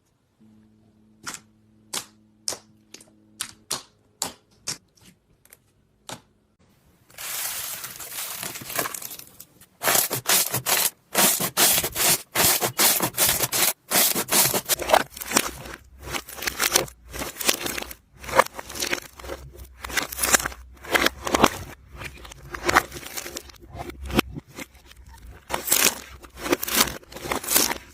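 Slime being squeezed and pressed by hand. For the first several seconds it gives single sharp pops about twice a second. About seven seconds in, these turn into dense, continuous crackling and popping that lasts to the end.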